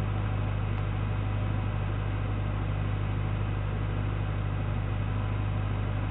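Steady low hum under a constant hiss, heard through a doorbell camera's narrow-band microphone.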